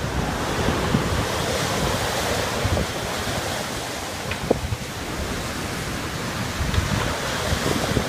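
Rough sea surf: large waves breaking and foam washing up the beach, with gusts of wind buffeting the microphone.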